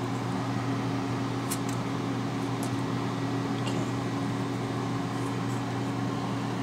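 T-fal air fryer running mid-cook, its fan giving a steady hum with a low drone. A few faint ticks come over it.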